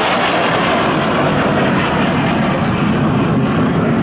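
Jet noise from an Aermacchi MB-339 PAN's Rolls-Royce Viper turbojet as the aircraft climbs away: a loud, steady rush that deepens about halfway through.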